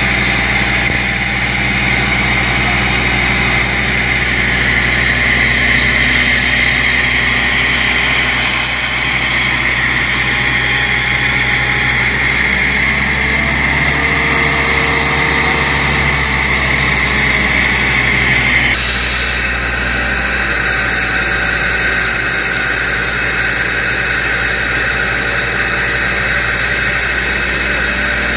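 Vehicle engines idling steadily in a stopped traffic jam: a constant low engine hum under a steady hiss. The sound shifts a little about two-thirds of the way through, its higher part getting quieter.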